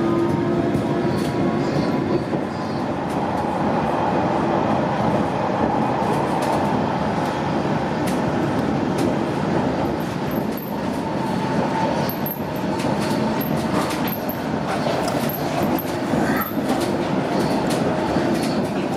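London Underground train running, heard from inside the carriage: a steady rumble of wheels on the rails with scattered clicks over rail joints, more of them in the second half.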